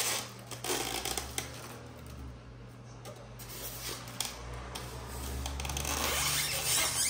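Handling noise as a diecast airliner model is worked out of its polystyrene foam tray: foam scraping and squeaking against the model, with rustling and a few light clicks, getting louder near the end.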